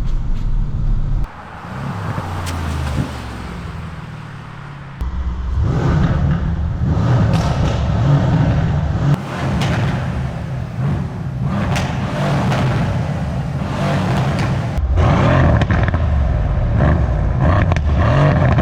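Mercedes-AMG C63 W205's 4.0-litre twin-turbo V8 running, its stock exhaust note loud throughout. About a second in it drops to a quieter, lower passage, and about five seconds in it comes back louder and busier.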